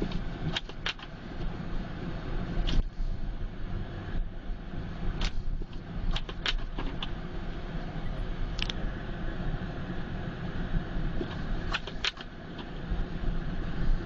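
Steady low rumble of a car driving on snow-covered roads, heard from inside the cabin, with scattered irregular clicks and knocks.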